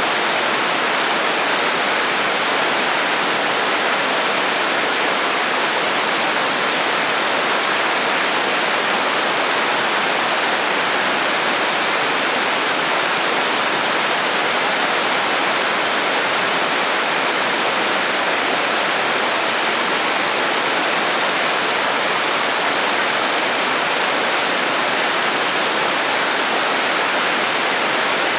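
Waterfall: falling water rushing in a steady, even roar with no breaks or changes in level.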